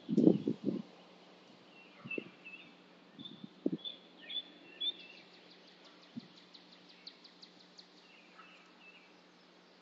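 Gunfire from a distance: a rapid string of about four dull bangs right at the start, then single, fainter shots at about two, three and a half, four and a half and five seconds. Birds chirp throughout, with a fast trill of about six notes a second in the second half.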